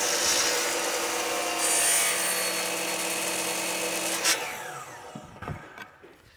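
DeWalt sliding compound miter saw running and cutting a 15-degree back bevel through baseboard trim. About four seconds in, a click and then the blade spins down with a falling whine.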